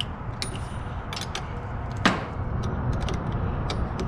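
Metal clicks and knocks of a wrench working a car battery terminal bolt, with one loud ringing clank about two seconds in, over a steady low rumble.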